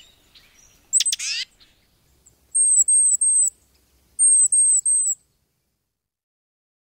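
Tufted titmouse calling: one harsh, raspy call about a second in, then two sets of three thin, very high downslurred notes.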